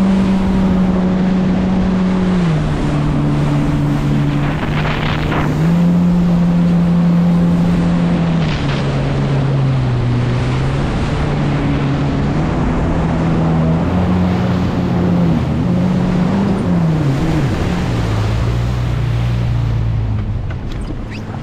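Motorboat engine running under way, its pitch shifting up and down several times as the throttle changes and settling lower after about seventeen seconds, over wind on the microphone and rushing water.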